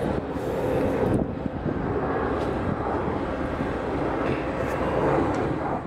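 Airbus A400M's four turboprop engines running as the aircraft taxis and turns on the runway: a steady propeller drone with a faint hum in it.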